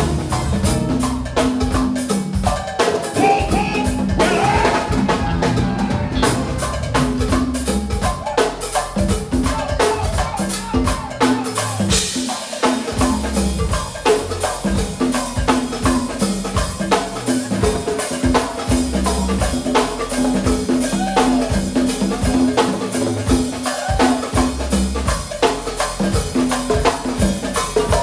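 Music played over a sound system, a track with a steady drum-kit beat and bass.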